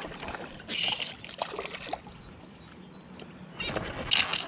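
Water splashing in short bursts, about a second in and again near the end.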